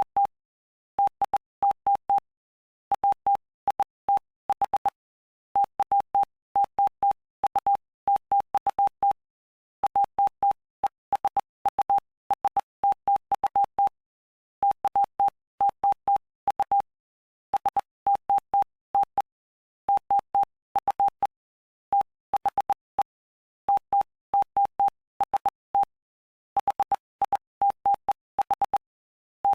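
Morse code: a single steady tone keyed on and off in dots and dashes, grouped into letters and words by short and longer gaps, spelling out the text of Mark chapter 5 of the Bible.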